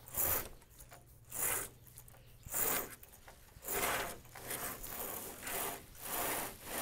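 Tornado catamaran's spinnaker halyard hauled hand over hand, the rope rasping through its blocks as the spinnaker is hoisted. The pulls come about once a second, closer together near the end.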